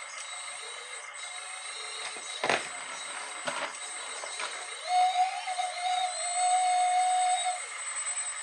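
Radio-controlled hydraulic construction model working: two light knocks, then the steady whine of its small electric hydraulic pump for about two and a half seconds in the second half.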